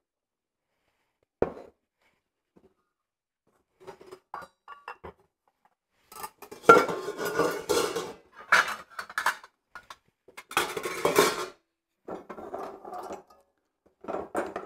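Metal mixer parts being handled in and around a stainless steel mixing bowl: a knock, a few light clinks, then bouts of metal clattering and clinking from about six seconds in.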